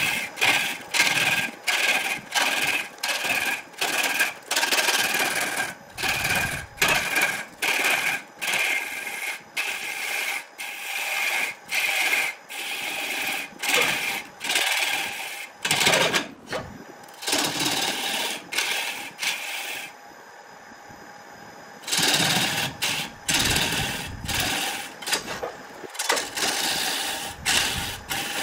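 Wood lathe spinning a large wood blank while a hand-held turning tool cuts into it in rapid, even strokes, about two to three a second, each a burst of scraping and tearing over the lathe motor's steady hum. Partway through, the cutting stops for about two seconds, leaving only the motor's hum, then resumes.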